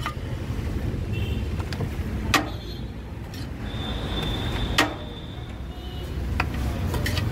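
Steady low rumble of road traffic, with several sharp metallic clinks as biryani is served from a large aluminium pot onto a steel plate.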